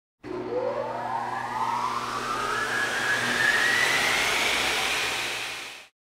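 Intro sound effect: a rushing whoosh whose tone climbs steadily in pitch for about five seconds over a steady low hum, fading out at the end.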